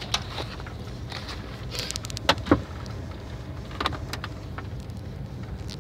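Steady low rumble inside a van's cab, with a few sharp clicks and knocks as a phone camera is handled and shifted about; two knocks come close together about two and a half seconds in.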